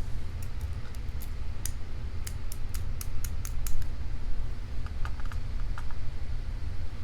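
Quick light metallic clicks and taps, about a dozen over the first few seconds and then fainter ticks, from tools working spool-type pins out of a padlock as it is gutted, over a steady low hum.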